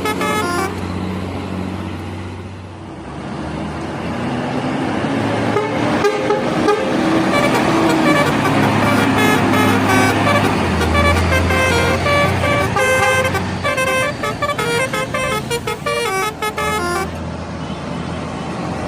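Bus telolet horn playing its multi-tone melody, short notes stepping up and down in quick runs, repeated several times, over a low bus engine drone and traffic noise.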